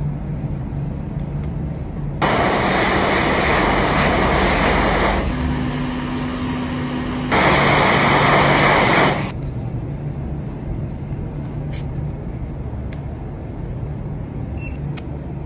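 Hot air rework station blowing hot air through its nozzle onto a small phone IC. A loud rushing hiss starts about two seconds in and eases to a softer hiss with a low hum for about two seconds. It comes back loud, then stops about nine seconds in, leaving a steady low hum.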